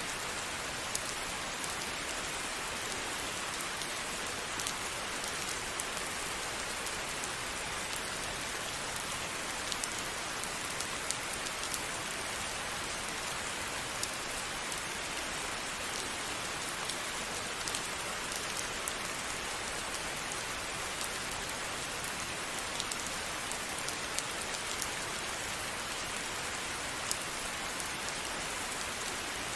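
Steady rain falling, an even hiss with scattered sharp drop ticks on a hard surface throughout.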